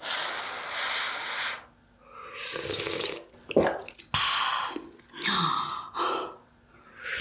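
Slurping hot, spicy kimchi dumpling hot-pot broth from a spoon: about six separate noisy slurps with breathy gaps between them, and a sharp click about halfway through.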